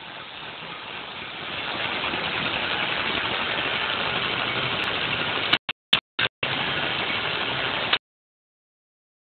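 Home-built CNC machine's Y-axis drive running in a test move: a steady noisy running sound that builds up over the first two seconds and then holds. About six seconds in it stops and starts in three short bursts, runs on again, and cuts off abruptly near the end.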